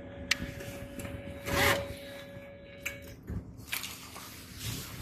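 A handbag being handled: short zipping and rubbing scrapes with a few small clicks, over the low steady rumble of a car cabin.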